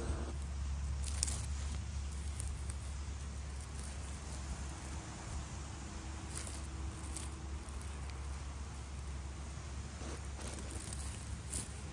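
Scattered rustling and crackling of dry forest-floor leaf litter, disturbed while foraging for mushrooms, over a steady low rumble.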